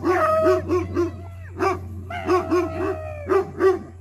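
Dogs barking in a quick series, about three barks a second, with long, high whining cries rising over the barks.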